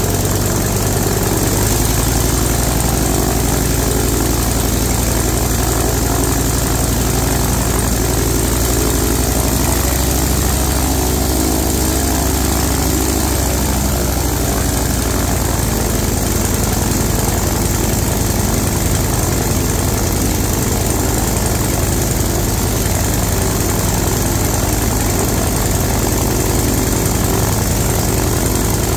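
Five-cylinder radial aero engine running on a test stand with its propeller turning, picking up speed about a second and a half in and then running steadily.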